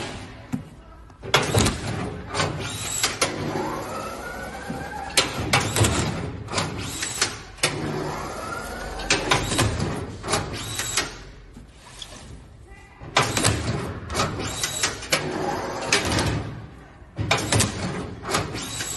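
Automatic arch strapping machine running repeated strapping cycles on a carton: a motor whine rising in pitch as the plastic strap is drawn tight, then sharp clacks as the strap is sealed and cut. This happens about five times, with short quieter pauses between cycles.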